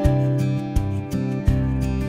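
Background music: a gentle track led by plucked acoustic guitar over a steady bass line.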